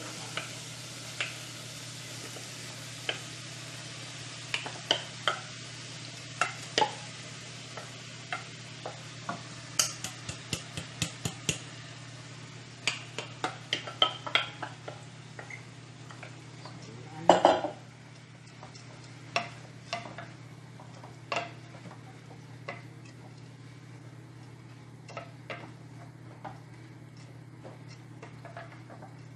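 Raw rice being poured from a bowl into sautéed onion, bell pepper and tomato in an aluminium pot and stirred with a wooden spoon. A light sizzle fades over the first ten seconds or so, with scattered knocks and scrapes of the spoon against the bowl and pot, and a louder clatter a little past the middle.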